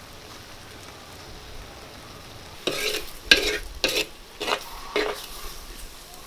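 A ladle stirs soft-cooked papaya cubes in a clay pot, about five quick scraping strokes starting about halfway through.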